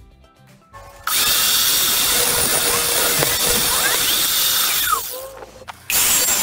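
Table saw running and cutting a small square piece of wood, loud from about a second in. The sound falls away near five seconds and comes back loud for another short cut near the end.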